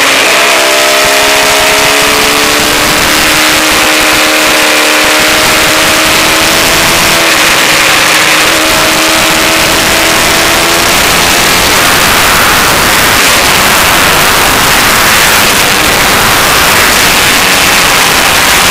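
Honda Fireblade's inline-four engine under way, its pitch climbing slowly as the bike gathers speed, with a brief dip about seven seconds in, heard under heavy wind rush on a bike-mounted camera. From about twelve seconds in, the wind noise all but drowns the engine.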